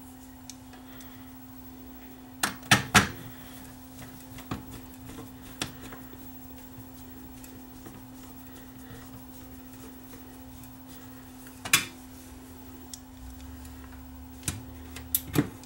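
Scattered sharp clicks and clatters of small hard parts and tools being handled during VCR repair work: a cluster about three seconds in, a single one near twelve seconds and a few more near the end, over a steady low hum.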